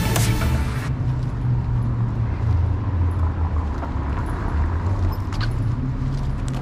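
Electronic background music cuts off suddenly about a second in, leaving open-air city ambience: a steady low rumble with a few faint clicks.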